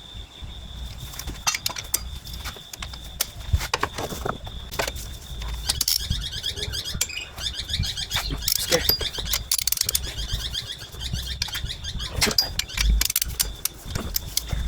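Ratchet wrench clicking in quick runs, with scattered clinks and knocks of metal tools, as cylinder head bolts on a Nissan QG18DE engine are angle-tightened with an angle gauge.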